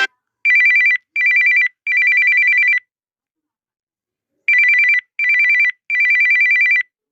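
Electronic mobile phone ringtone: a rapid two-tone warbling trill in groups of three bursts, short, short, long, sounding twice with a pause between.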